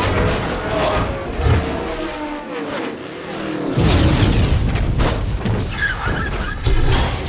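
Action-film sound effects: racing car engines and skidding tyres, then about four seconds in a loud explosion with a car crashing.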